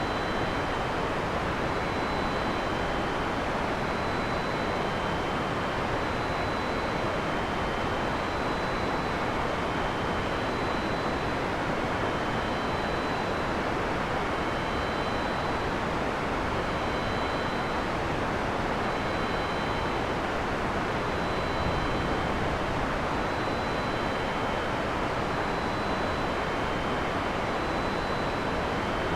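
Heavy rain falling steadily: a dense, even hiss with no thunder. Faint, short, high-pitched tones repeat every second or two above the rain.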